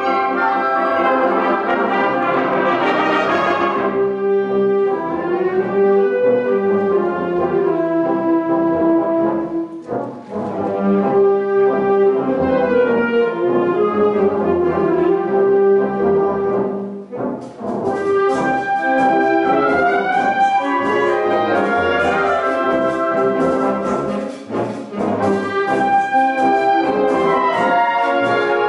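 Concert wind band playing, with sustained brass chords and moving lines to the fore. The music briefly thins twice, and from about two-thirds of the way through a fast run of sharp percussion strikes plays over the ensemble.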